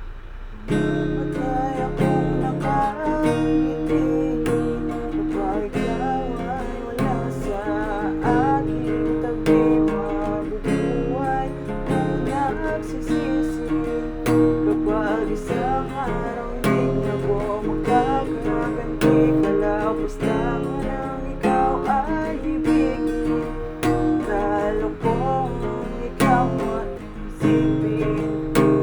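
Acoustic guitar strummed in a steady rhythm, with a melody line over the chords.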